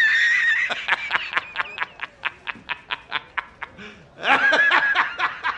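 A man laughing hard: a high-pitched squealing wheeze, then a quick, even run of short ha-ha pulses, about six a second, and another high wail near the end.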